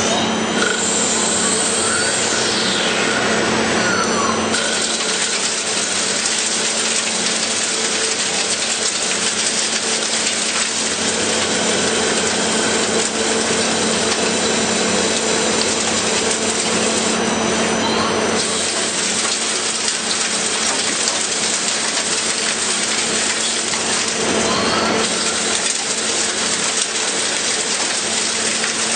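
CNC machine running, a loud steady machining noise with a constant hum underneath.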